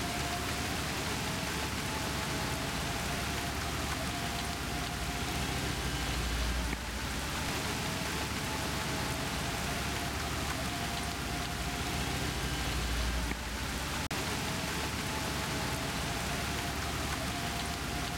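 Steady heavy rain, an even hiss of falling drops with no break. A deep low rumble swells and fades twice.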